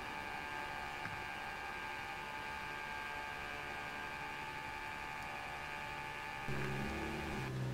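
Steady electric whine of N scale model diesel locomotives' motors and gears as the train runs past. About six and a half seconds in, a lower hum joins in.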